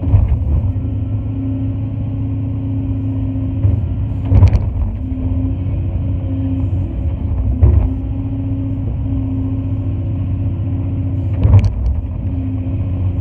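Cat 349 excavator's diesel engine running steadily under load, heard from inside the cab, with three heavy thumps spaced a few seconds apart.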